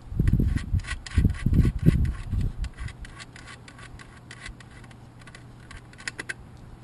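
Hands handling a replacement plastic side-view mirror assembly for a 1999–2004 Ford Mustang: rubbing and scratching with many small clicks as the fingers work at its mounting studs, with dull low bumps during the first three seconds.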